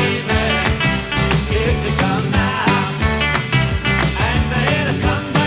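Up-tempo pop-rock music with a steady drum beat and melodic lines over it.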